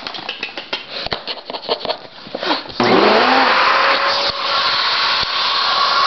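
Vacuum cleaner switched on about three seconds in, its motor running up to a loud, steady whine, with air rushing through a hose and brush nozzle. Before it starts there is a run of clicks and knocks.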